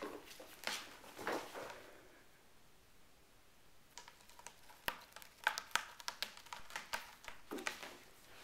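RagaMuffin kittens scampering and scuffling on a hardwood floor: soft rustling in the first couple of seconds, then after a quiet spell a run of light, irregular taps and clicks of paws and claws on the boards.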